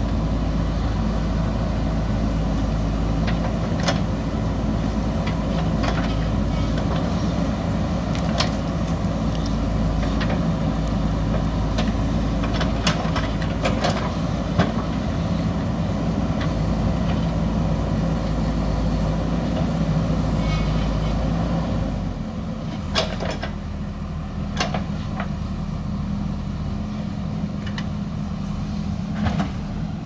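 JCB 3DX backhoe loader's diesel engine running under load as the backhoe digs through soil and roots, with scattered sharp clanks and knocks from the bucket and arm. About two-thirds of the way through the engine eases off and runs lower and quieter.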